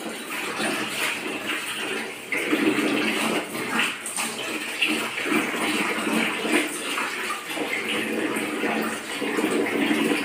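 Clothes being washed by hand in a large plastic tub of water, with irregular sloshing and splashing as the cloth is pushed down, swirled and lifted.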